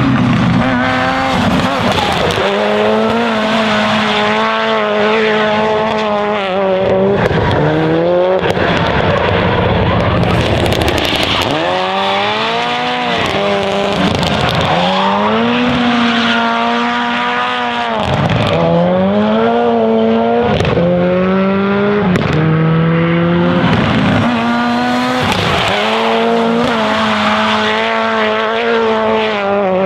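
Mitsubishi Lancer Evolution rally car's turbocharged four-cylinder engine being revved hard and backed off over and over as the four-wheel-drive car drifts, its note climbing and falling repeatedly, with a quick run of short rising pulls in the middle. Tyres squeal and skid beneath it.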